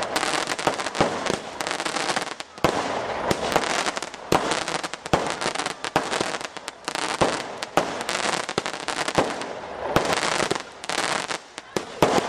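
Fireworks display going off: a string of sharp bangs over dense crackling, coming in clusters a second or two long with short lulls between them.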